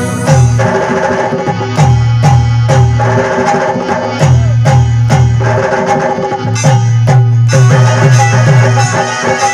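Instrumental passage of Rajasthani folk devotional music: hand drums play a steady rhythm of heavy low beats with sharp accents, under a held melody line.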